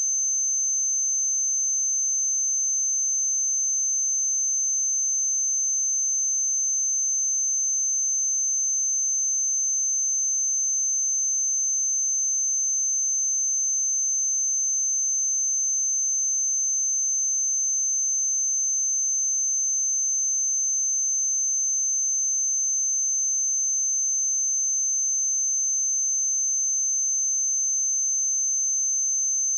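A steady, high-pitched 6231 Hz sine-wave test tone, one pure pitch held at constant level.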